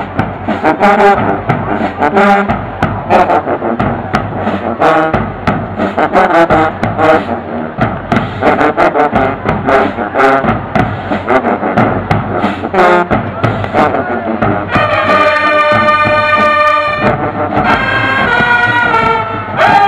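Marching band brass section with sousaphones playing loud, short, rhythmic chords, then two long held chords near the end.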